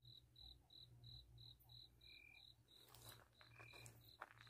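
Faint, evenly paced chirping of a cricket, about three high chirps a second. Two brief lower notes cut in around the middle, and a few light rustles come near the end.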